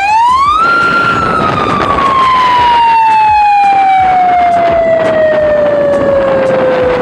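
A siren winds up sharply in pitch in under a second, then slowly winds down over several seconds.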